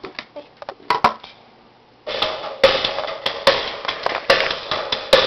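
A few clicks from the buttons of a CD clock radio, then about two seconds in music starts playing loudly from its CD player, with strong beats.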